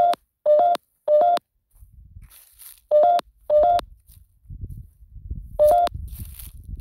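Short electronic beeps from the GhostTube ghost-hunting phone app, each a quick two-step rising tone, sounding six times in uneven clusters. Underneath are low rumble and faint crunching of footsteps on dry grass.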